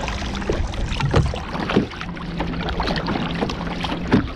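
Double-bladed kayak paddle dipping and splashing into the sea with each stroke, with a sharper splash about four seconds in.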